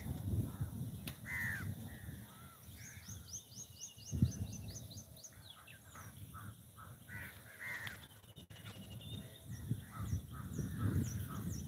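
Crows cawing, with a quick run of high, thin chirps from another small bird a few seconds in and again near the end, over a low rumbling noise.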